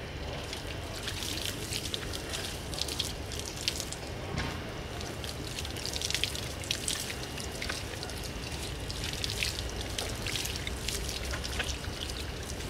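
Water from a garden hose spraying onto a trailer wheel and splashing onto the dirt, an uneven hiss and spatter.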